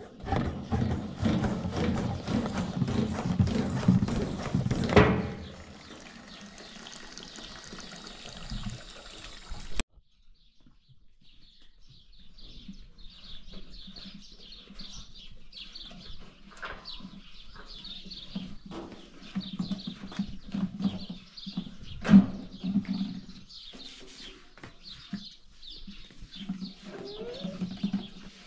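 Liquid gushing through a ribbed plastic hose into a plastic jerrycan for about five seconds. After a pause, birds chirp steadily in the background, with a low hum and one sharp knock a little after halfway.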